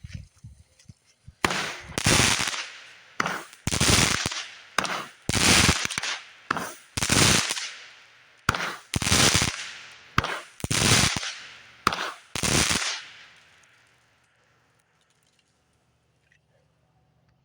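A consumer fireworks cake firing a volley of about a dozen loud, sharp bangs, roughly one a second, each trailing off before the next. The volley stops about thirteen seconds in.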